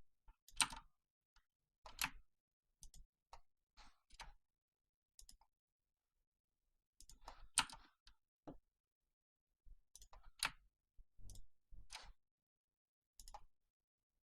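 Computer mouse clicking: faint, scattered single clicks and quick double clicks at an uneven pace, with a pause of about two seconds near the middle.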